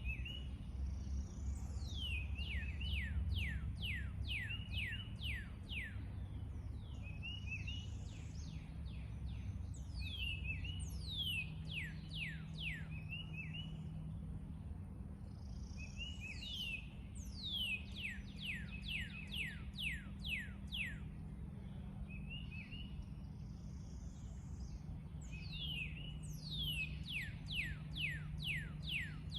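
A songbird repeating the same song about every eight seconds: a quick run of about eight sharp, high, downslurred notes. Between songs come short chirps and softer high calls. A steady low rumble runs underneath.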